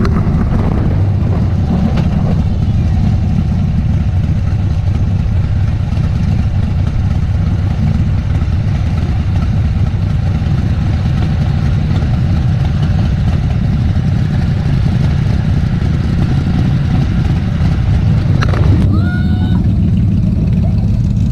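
Wind buffeting a helmet-mounted GoPro microphone as a heavy, steady low rumble, over the running V-twin engine of a Harley-Davidson Dyna Street Bob. Near the end the hiss thins out and a few short higher tones come through.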